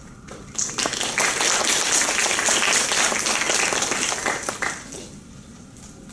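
Audience applauding: a burst of clapping that starts about half a second in, holds for about four seconds and dies away.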